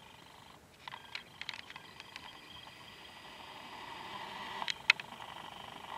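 Video camera's own mechanical noise as it zooms in: a faint steady whine with scattered small clicks, then two sharp handling clicks near the end.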